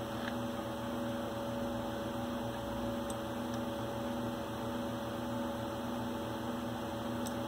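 Steady electrical hum holding several fixed tones over a light background hiss, with a couple of faint clicks.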